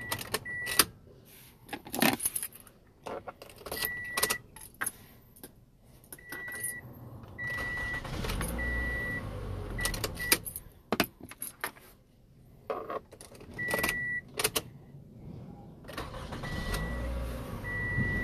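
Keys clicking and jangling as a key is turned back and forth in a Toyota Camry's ignition switch while a key is being programmed, with the car's electronic chime beeping over and over. Two short stretches of low rumble come in, about halfway and near the end.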